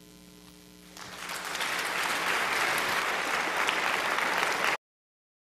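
A congregation applauding, starting about a second in and swelling, then cutting off suddenly near the end. Before the clapping starts there is a low steady electrical hum.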